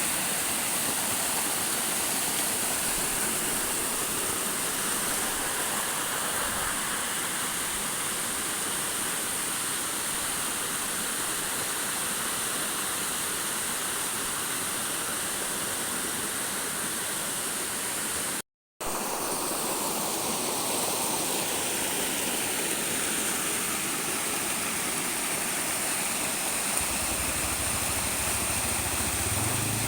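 Waterfall rushing steadily, with a brief dropout about two-thirds of the way through. Near the end a low engine hum comes in.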